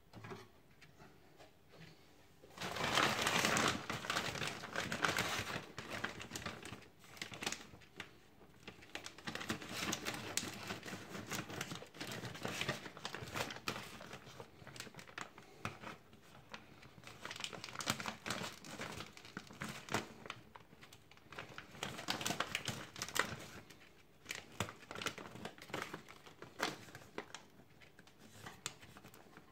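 Plastic bag of frozen French fries crinkling and rustling as it is handled and cut open with scissors. The loudest stretch of crinkling comes early, then it keeps coming in bursts.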